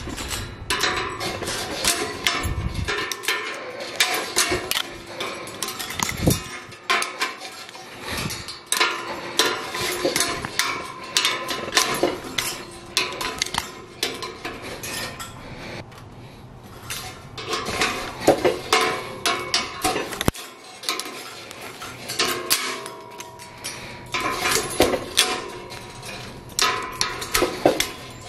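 Steel tie wire scraping and clicking against rebar, with pliers clinking on the bars and wire as a rebar tie is wrapped, twisted and snapped tight. Many sharp metallic clicks and clinks in quick runs, with a few short pauses.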